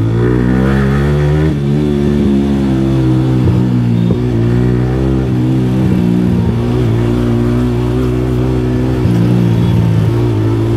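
Yamaha R15 V3's single-cylinder engine running at cruising speed, its note rising a little at the start and then holding steady, with wind noise rushing over it.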